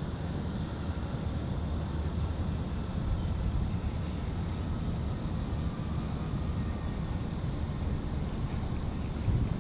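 Dodge Charger 392's 6.4-litre HEMI V8 idling with a steady low exhaust rumble, with a brief louder surge near the end.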